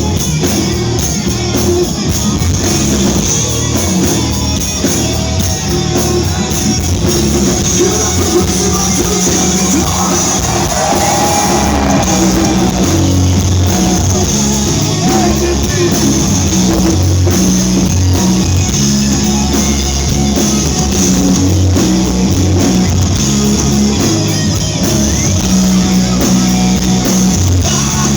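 Live rock band playing loud and steady, with distorted electric guitar, bass, drums and a shouted lead vocal.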